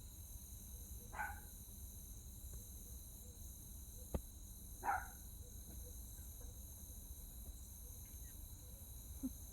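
Two short barks from a distant canine, about four seconds apart, over a steady high-pitched chorus of crickets.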